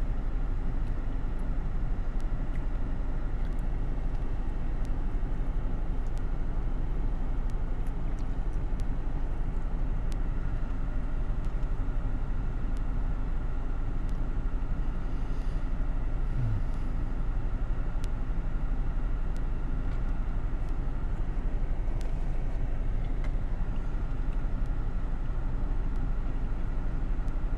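Steady low rumble and hiss inside a stationary car, with faint scattered clicks from eating a sandwich.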